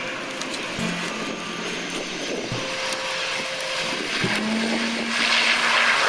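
ATR 72 twin-turboprop airliner landing and rolling out on the runway, a steady propeller drone that grows louder near the end as it passes closer.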